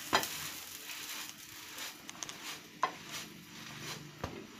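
Faint sizzling of kulcha dough being pressed down by hand onto a hot iron pan to toast it, with three sharp light clicks spread through it.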